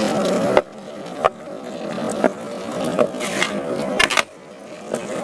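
Skateboard wheels rolling on rough asphalt, broken by several sharp clacks of the board popping and landing, the loudest a quick double clack about four seconds in.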